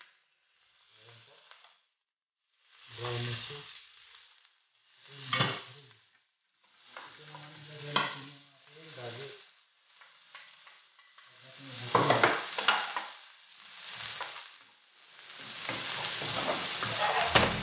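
Chicken breasts frying in oil in a skillet, sizzling in separate bursts as they are turned with a spatula that scrapes against the pan. Near the end, sliced onions sizzle as they are stirred in a second pan, the loudest part.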